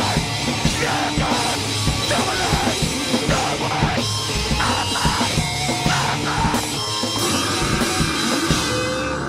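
Live band playing fast, heavy, distorted rock on electric guitar, bass and drum kit, with the drums hitting hard and fast. The drum hits stop shortly before the end while the guitar keeps sounding.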